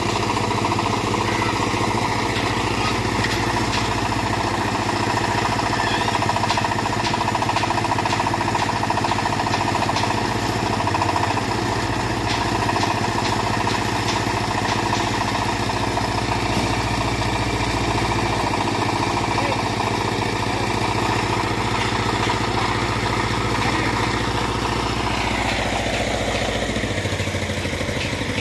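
Mini backhoe's engine running steadily while it works, with scattered light knocks. The engine note falls about 25 seconds in as the revs drop.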